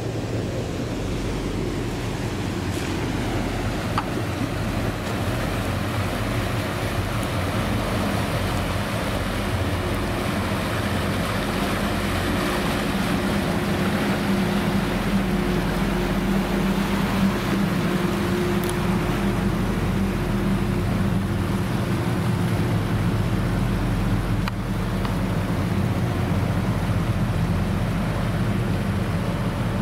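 Passenger ferry Île de Vacances Premier passing close by, its engines running with a steady low hum over the rush of water churned along its hull.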